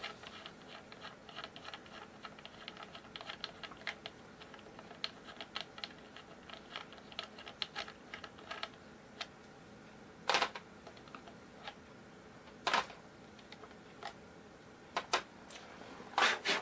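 Small guitar hardware being taken off and handled: a run of light, rapid clicks and ticks, then four louder, separate knocks in the last third.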